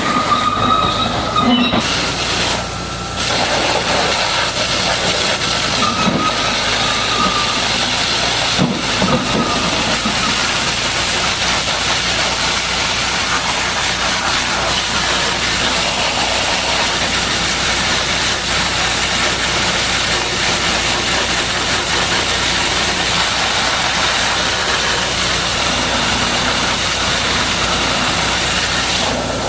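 High-pressure water jet spraying against the steel body of a Caterpillar D8R bulldozer: a steady, loud hissing rush, briefly dropping about three seconds in.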